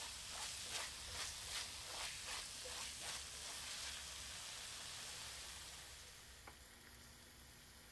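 Onions and spices frying in a stainless steel wok, sizzling while a spatula stirs and scrapes them in short strokes about twice a second. After about four seconds the stirring stops and a quieter sizzle goes on.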